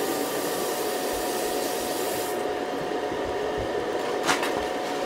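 Water running from a tap into a sink in a steady hiss while hands are washed; the hiss drops a little about two seconds in, and there is a short knock near the end.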